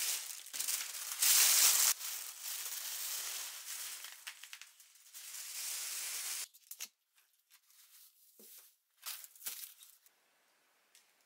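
Plastic grocery bags and food packaging rustling and crinkling as groceries are unpacked, loudest about a second in. After that come a few short light knocks as packs are set down on a stainless-steel counter.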